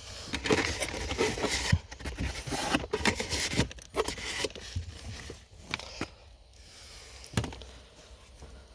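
Pleated cabin air filter being handled after removal: irregular rustling, scraping and crackling for the first few seconds, then a few separate sharp knocks, the loudest a little past seven seconds in.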